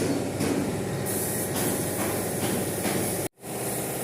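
Steady machine hum of workshop noise, with a short burst of hissing about a second in. The sound drops out for an instant near the end.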